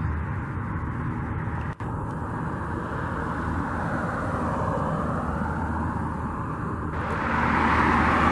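Steady rumbling vehicle or traffic noise, growing louder about seven seconds in.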